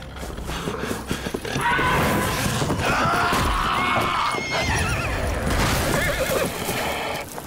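Horse neighing in distress as a wolf attacks it and brings it down: long, wavering calls from about two seconds in until about five seconds, over scuffling noise.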